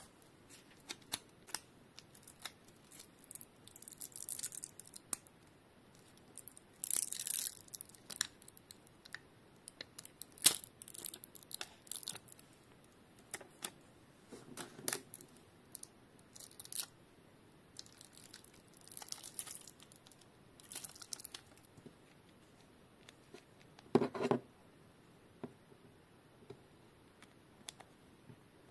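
Foil and paper packaging of a bicycle inner tube patch kit being handled and torn open: crinkling and tearing in short bursts among small sharp clicks and taps, with one heavier knock on the bench near the end.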